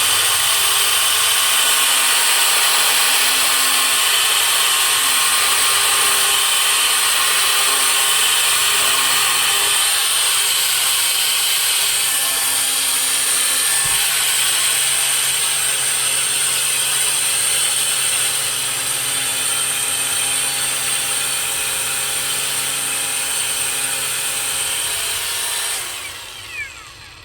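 4-inch angle grinder fitted with an oscillating sanding-pad adapter, running steadily while sanding a piece of wood. It gives a high whine and winds down near the end.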